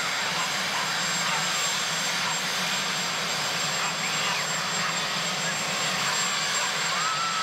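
Marine One, a Sikorsky VH-3D Sea King helicopter, running its turbine engines on the ground: a steady rushing noise with a thin high whine over it.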